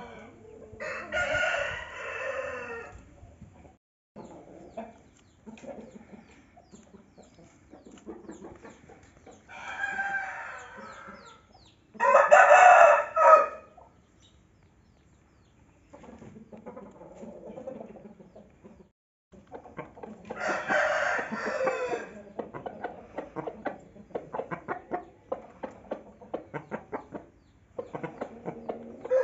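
Game roosters crowing four times, with long calls spread through and the loudest about twelve seconds in. Softer clucking and a run of short ticks fill the gaps, mostly in the second half.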